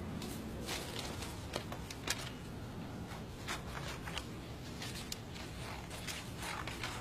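Sheet paper crinkling and rustling in many quick, irregular crackles as a schoolbook is covered with paper.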